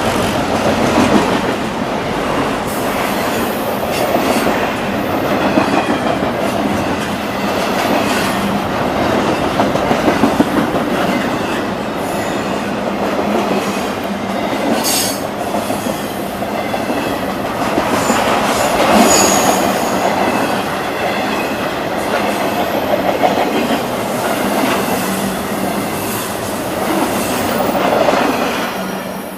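Train rolling past at steady speed, its wheels clacking over the rail joints, with a brief faint wheel squeal about two-thirds of the way through.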